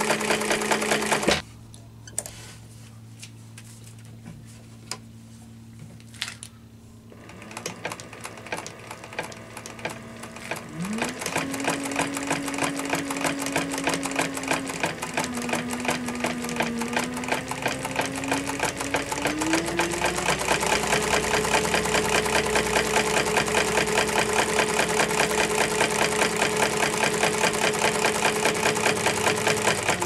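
Industrial sewing machine running at speed in a zigzag stitch, a fast even needle ticking over its motor hum. It stops abruptly about a second in, and a few scattered clicks follow. It starts again around eight seconds in, with the motor's pitch rising around eleven seconds and again around twenty seconds.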